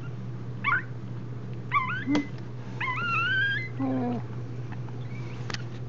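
Newborn Scottish terrier puppies squeaking and whimpering while nursing: several short high-pitched squeaks and a longer rising whine about three seconds in, over a steady low hum.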